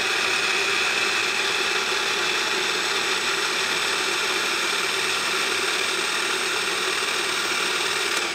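Electric countertop food processor running steadily at full speed, its blade chopping and puréeing a pesto mixture with olive oil.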